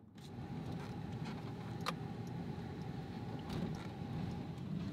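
Car interior noise while driving: a steady low rumble of engine and road, with a faint steady whine above it and a single sharp click about two seconds in.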